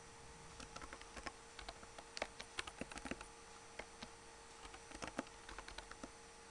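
Faint typing on a computer keyboard: irregular keystrokes with short pauses, stopping about six seconds in.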